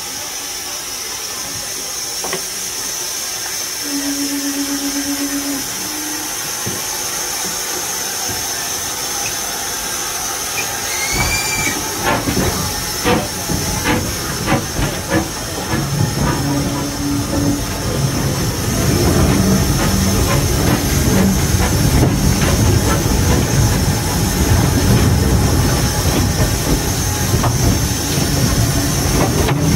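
Steam locomotive heard from the footplate: a steady hiss of steam, then about a third of the way in knocks and clanks start and build into louder, denser running and rail noise as the engine gets under way.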